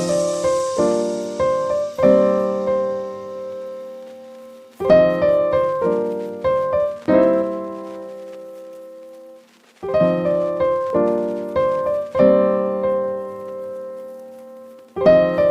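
Background piano music: phrases of struck notes that die away, with short pauses between phrases.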